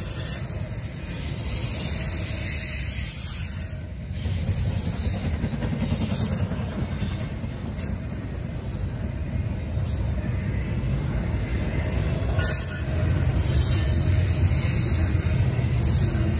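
Double-stack intermodal well cars loaded with shipping containers rolling past: a steady low rumble of steel wheels on rail, with short, sharper rushes of higher sound every few seconds.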